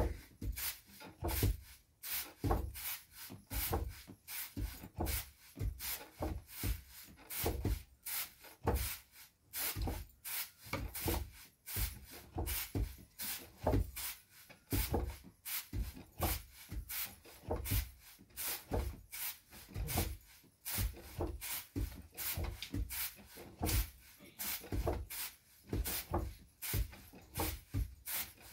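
Paddy being pounded by hand with a wooden dheki lever pounder and an okhli mortar and pestle, dehusking the grain: repeated wooden thuds on the grain, a few a second, in an uneven, overlapping rhythm.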